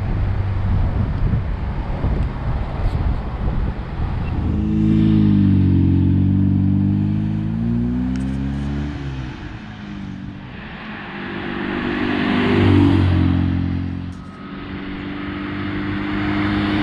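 1969 MGB's 1.8-litre four-cylinder engine running on the road, heard first from inside the car under a haze of wind and road noise. It is then heard from the roadside as the car drives up, its engine note rising and falling in pitch and swelling as it nears.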